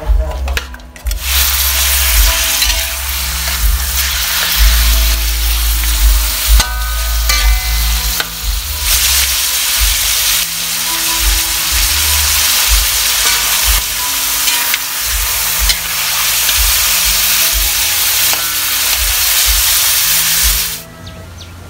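Chicken pieces sizzling loudly in hot oil in a wok as they are stir-fried, with the occasional clink and scrape of a metal spoon against the pan. The sizzle starts about a second in and cuts off abruptly near the end.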